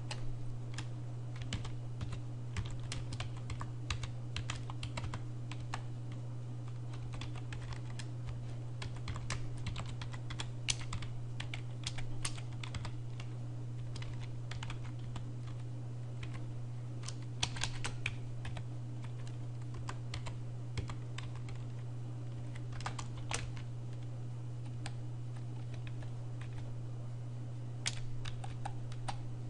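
Computer keyboard being typed on at an uneven, unhurried pace: separate keystroke clicks with short pauses between them, over a steady low hum.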